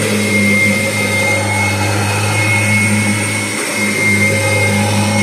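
Kirby Generation 4 upright vacuum cleaner running steadily with a constant motor hum and a thin high whistle. It has a little exhaust leak, and the owner says the old bag needs replacing. The hum dips briefly about three and a half seconds in.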